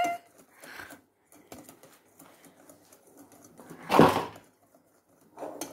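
Faint, irregular clicks of a spoon working a bowl of chocolate cake batter, with one louder, brief scuffing noise about four seconds in.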